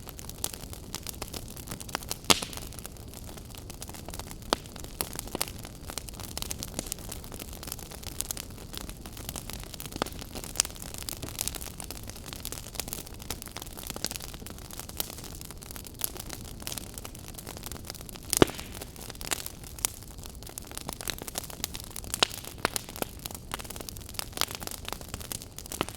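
Campfire burning: wood crackling and popping in irregular sharp snaps over a steady low hiss, with a couple of louder pops about two seconds in and again near eighteen seconds.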